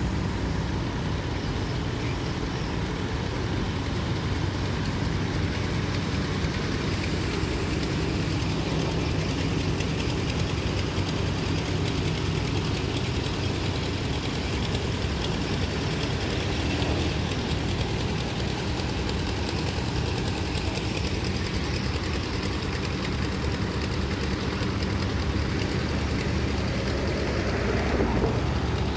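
An engine running steadily with a low rumble, which swells briefly with a rise in pitch near the end.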